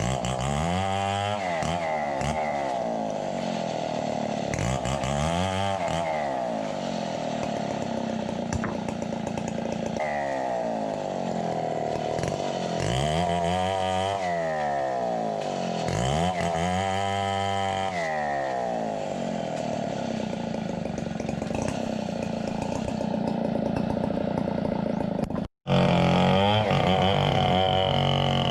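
Chainsaw cutting coconut wood, the engine revving up and falling back again and again as it bites into the trunk and eases off. Near the end it cuts off abruptly and a different steady drone takes over.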